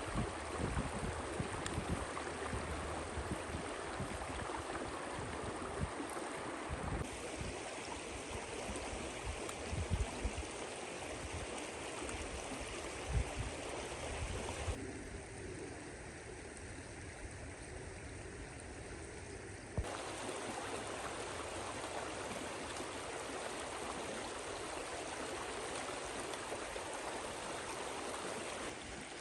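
Flowing water, heard as a steady rushing noise that changes abruptly in tone three times, with a few short low knocks.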